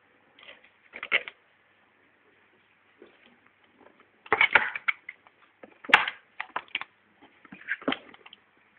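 Cardboard box being scratched and knocked in irregular crackly bursts as a cat plays at it, the loudest burst about halfway through.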